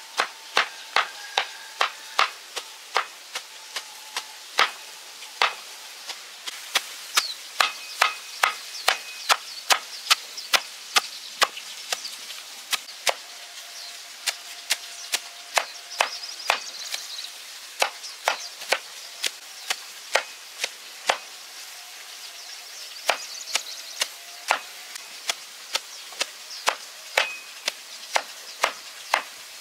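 Steady chopping with a blade, about two to three sharp strokes a second, breaking off briefly twice.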